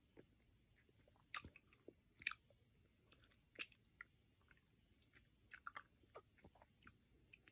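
A person chewing a soft, chewy candy close to the microphone: faint, irregular mouth clicks.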